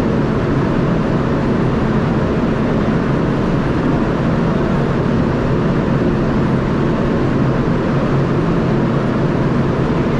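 A ship's machinery running with a steady, unchanging low drone and hum.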